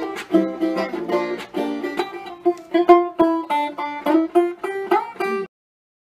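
Title theme music: a quick plucked-string tune with rapidly picked notes. It cuts off suddenly about five and a half seconds in.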